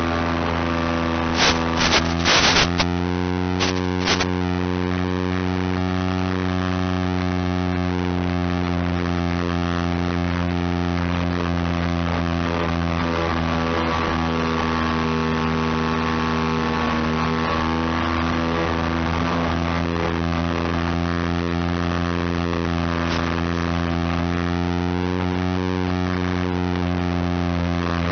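Electric motor and propeller of an FPV RC plane droning steadily in flight, picked up by the onboard camera, its pitch dipping and rising slightly with the throttle. A few sharp crackles come a couple of seconds in.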